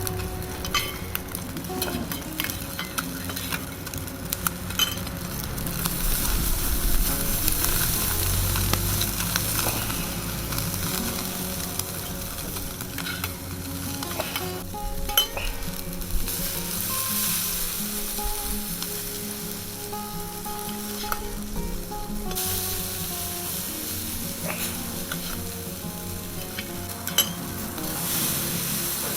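Chicken-skin skewers sizzling as they grill over charcoal, a steady hiss with scattered sharp pops.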